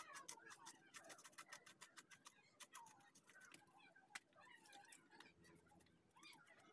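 Faint, rapid scraping clicks of a knife working over small fish, scaling and cutting them, dense at first and thinning out later.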